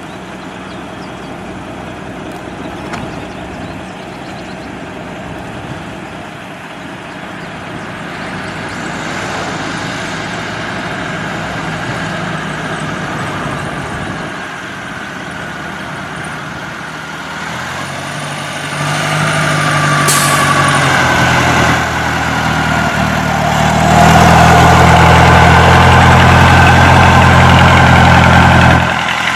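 Old car's engine running steadily and growing louder, with a step up partway through and another about five seconds before the end, where it is loudest. There is a brief hiss about two-thirds of the way through.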